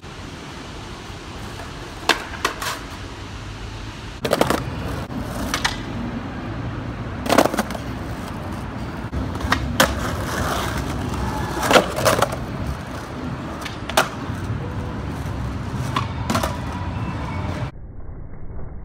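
Skateboard wheels rolling on concrete with a steady rumble. About nine sharp clacks of the board hitting the ground are scattered through it. Near the end the sound suddenly turns muffled.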